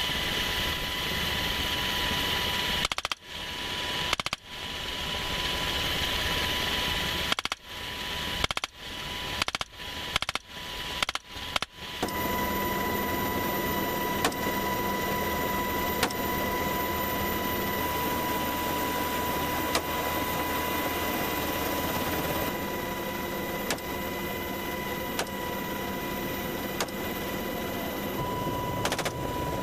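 Helicopter cabin noise: a steady engine and rotor noise with a constant whine, broken by about nine sudden brief drops in level between three and twelve seconds in.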